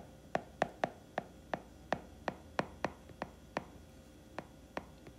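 A stylus tapping and clicking on a tablet screen while handwriting: a quick, uneven run of sharp taps, about three a second, as each letter stroke touches down.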